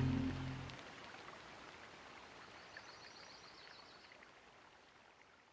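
Guitar music's last notes die away within the first second, leaving a faint, even outdoor hiss with a few soft ticks and a brief high trill, which fades out to silence.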